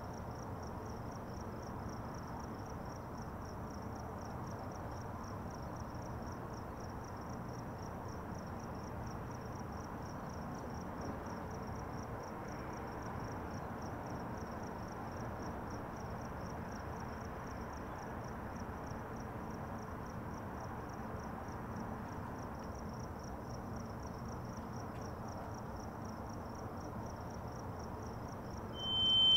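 Crickets chirping in a fast, even trill over a faint low hiss of night ambience. A loud, steady high tone cuts in right at the end.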